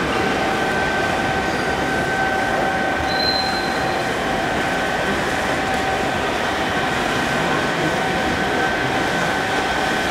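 Coal-fired 5-inch gauge live-steam model of an LNER B1 locomotive standing in steam: a steady hiss with a faint, even whine through it.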